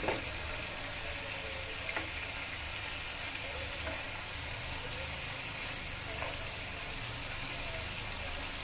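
Tandoori-marinated chicken drumsticks sizzling steadily in oil and reducing marinade in an open nonstick pan, browning uncovered, with a couple of light clicks of a steel spoon against the pan.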